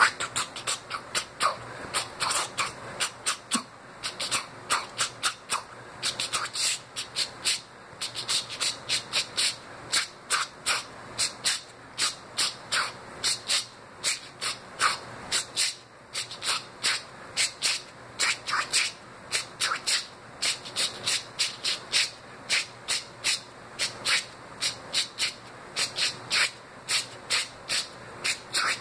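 A person's mouth imitating DJ turntable scratching: a continuous run of short, sharp, scratchy strokes and quick pitch sweeps, a few every second.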